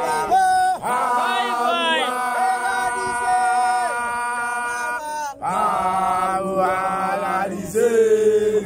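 A young man's voice chanting in long, drawn-out held notes, breaking off briefly about five seconds in before carrying on. It is a traditional song of a mophato (initiation school).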